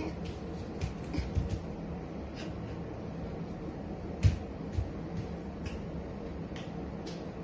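A steady low hum with scattered light clicks and knocks; the loudest knock comes about four seconds in.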